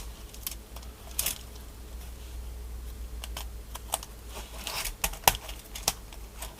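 Irregular clicks and taps of a keyboard plate full of vintage Cherry switches being handled and pressed onto the PCB, switch pins being fitted through the board. The sharpest clicks come about a second in and around five seconds in.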